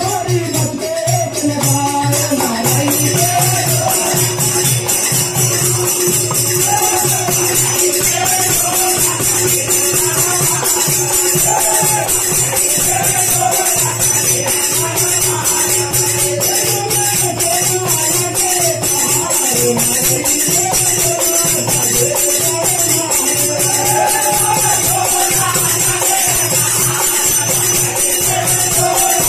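A Devi jas, a rural devotional folk song to the goddess, performed live by a group of men. A lead voice sings a wavering melody over a steady drone, with a beating drum and continuous fast jingling percussion.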